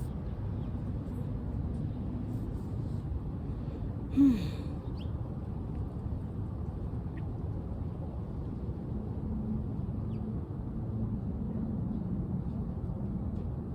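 Steady low outdoor rumble of wind and distant traffic, with a short breathy sigh whose pitch falls about four seconds in and a few faint bird chirps.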